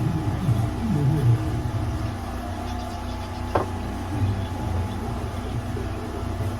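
An engine idling with a steady low hum, with one short sharp click about three and a half seconds in.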